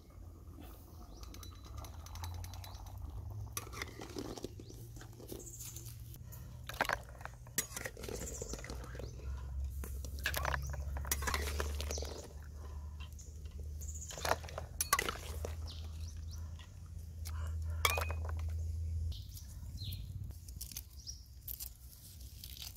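A metal spoon clinking and knocking against a metal pot while boiled eggs are scooped out of the water, over a steady low rumble.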